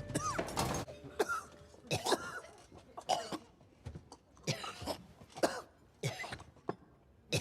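A man coughing: a string of short coughs about a second apart.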